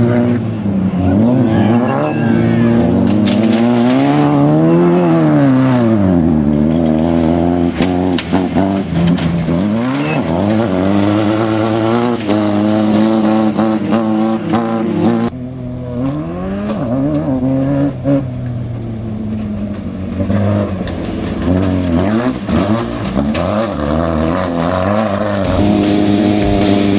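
Off-road desert race car's engine running hard, its pitch repeatedly climbing and dropping as it accelerates and lets off. About fifteen seconds in it suddenly becomes quieter and duller, then carries on climbing and falling.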